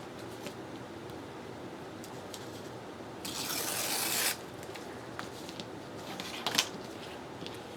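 Paper being handled at a craft desk: one rasping, rubbing sound about a second long partway through, with a few light taps and a sharper click later.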